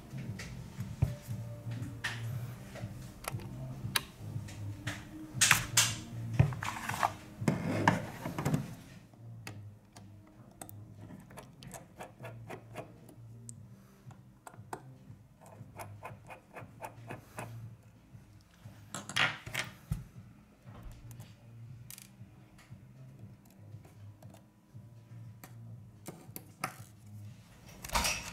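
Small clicks, taps and scrapes of fingers and a metal pick working on a smartphone's metal body while it is taken apart. The louder scraping comes in a cluster about six to eight seconds in and again around nineteen seconds.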